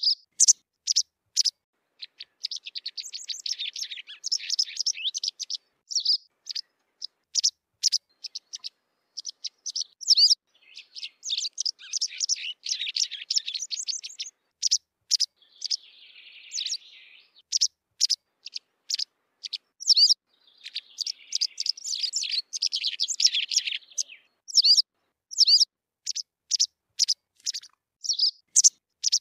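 White wagtail calling: short, sharp chirps repeated every half second or so, broken by three runs of rapid twittering song a few seconds long. There is a brief scratchy rasp midway.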